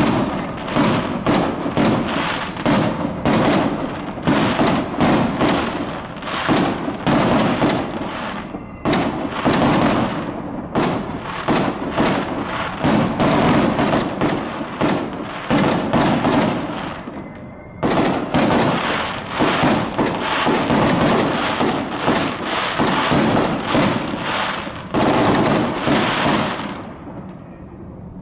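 Fireworks display: a dense string of bangs, several a second, each ringing out after it. There is a brief lull a little past halfway, and the bangs die down near the end.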